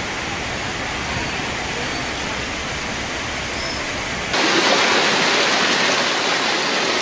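Heavy rain and rushing floodwater, a steady hiss that cuts abruptly to a louder, brighter rush about four seconds in.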